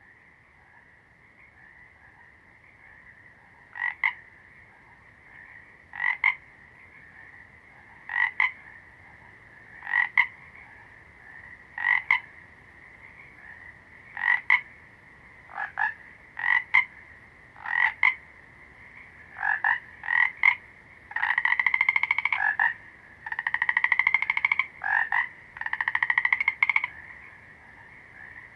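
Frog calling: short single croaks about every two seconds, then a few longer trilled calls near the end, over a steady high-pitched background chorus.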